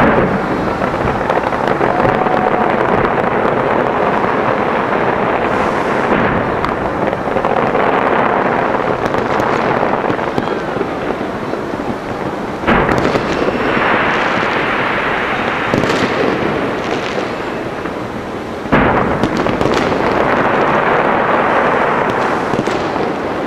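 A dense, continuous barrage of fireworks, many bangs and crackles running together without a break. Fresh volleys set in suddenly and louder about 13 and 19 seconds in.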